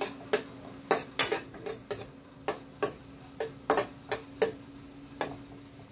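Metal spoon clinking and scraping against a nonstick wok as meat is stirred: an irregular run of sharp clicks, about fifteen, that stops about five seconds in, over a faint steady hum.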